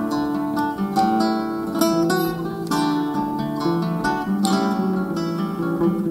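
Acoustic guitar and cello playing an instrumental tango passage between sung verses: plucked guitar notes over long held cello tones.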